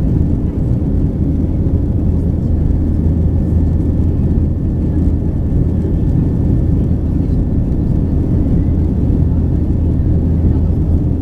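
Steady cabin noise of a Boeing 737-800 climbing out after takeoff: a loud, even low rumble from its CFM56-7B engines and the airflow, heard inside the cabin from a window seat over the wing.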